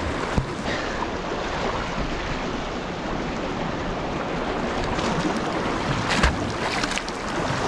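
Small sea waves washing and lapping over shoreline rocks, with wind rumbling on the microphone. A brief sharp thump stands out about six seconds in.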